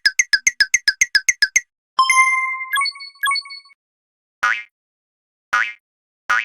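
Electronic sound effects of an animated railroad crossing signal: a fast run of short repeated tones, about eight a second, that stops about a second and a half in, then a ringing chime with a held tone and two more strikes, then three single short blips about a second apart.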